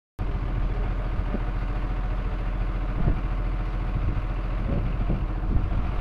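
Steady low hum of a running engine, even and unchanging throughout.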